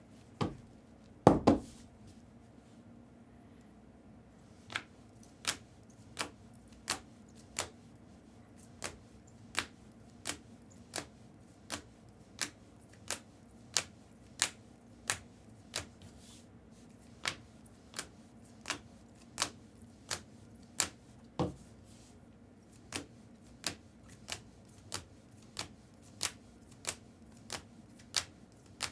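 Trading cards being set down one at a time on a table, a light sharp click roughly every two-thirds of a second; a heavier thump about a second and a half in.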